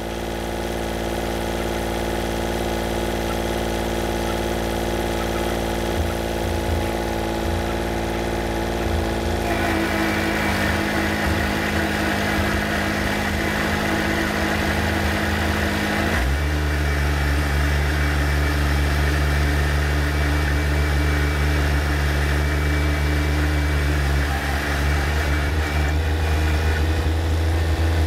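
Kubota L2501 compact tractor's three-cylinder diesel engine running steadily as the tractor is driven. Its note changes about ten seconds in and again about sixteen seconds in, when it drops to a deeper tone.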